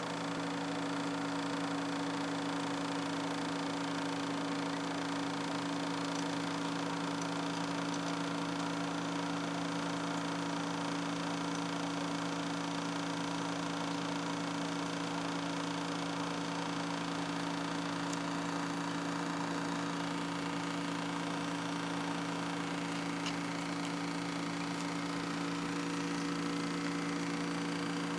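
Aquarium pump humming steadily: a few fixed low tones over a constant hiss, with no change in level.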